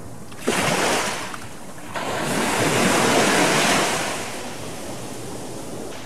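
Small waves breaking and washing up on a sandy beach: a short surge starting suddenly about half a second in, then a longer wash from about two to four and a half seconds, dying back to a low steady wash.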